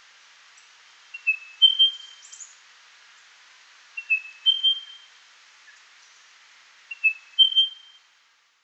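Spotted pardalote calling: a repeated whistled phrase, a short lower note then a longer higher one, given three times about three seconds apart.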